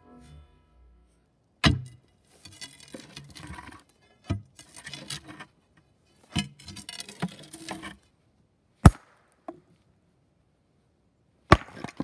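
Stone splitting with steel wedges and feathers: about half a dozen sharp metal strikes, unevenly spaced, as a steel bar and sledgehammer work the wedges in the split stone, with loose steel wedges jangling and scraping in between. Guitar music fades out at the start.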